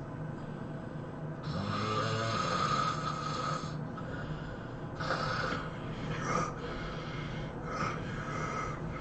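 A person snoring in their sleep. One long snore begins about a second and a half in and lasts about two seconds, followed by three shorter snoring breaths.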